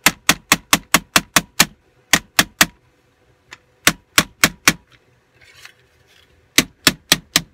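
Yellow mallet striking a flattened aluminium bottle on a wooden board: sharp taps in four quick runs of three to seven blows, about four a second, with short pauses between runs.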